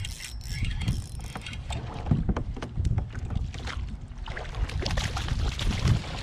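Wind buffeting the microphone on a fishing kayak, with irregular knocks and clicks of handling on the boat.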